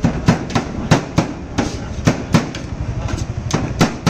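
Metal spatula striking and scraping a steel griddle as shredded chicken and egg are chopped and tossed: rapid, irregular metallic clacks, about three a second, over a steady low rumble.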